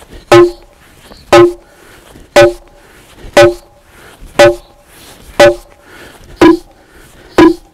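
An ash log being pounded with a heavy tool to loosen its growth rings into basket splints: eight evenly spaced blows, about one a second, each a sharp knock that rings briefly with a pitch.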